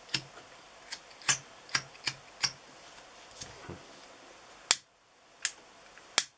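Irregular sharp plastic clicks, about ten in six seconds with the loudest near the end, from handling a kitchen gas lighter and butane refill can while trying to refill the lighter.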